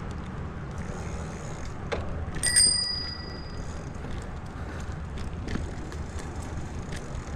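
Bicycle bell rung with a quick ding about two and a half seconds in, its bright ring fading over about a second, over a steady low rumble of wind and road noise from riding.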